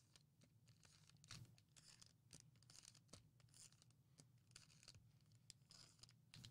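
Near silence with faint, scattered ticks and rustles of trading cards and foil card packs being handled.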